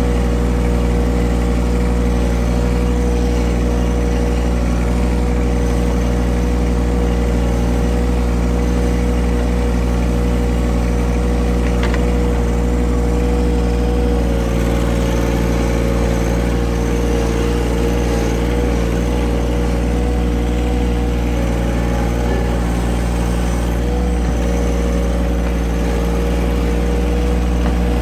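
A vehicle engine running steadily at an even speed. Its pitch wavers slightly through the second half.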